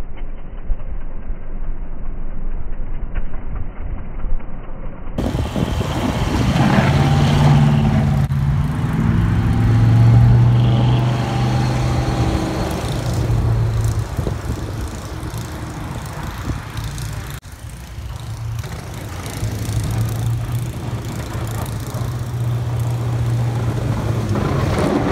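1972 Chevy K20 plow truck's 350 small-block V8 running as the truck pushes snow with its plow and drives up close, its engine hum becoming much louder and fuller about five seconds in.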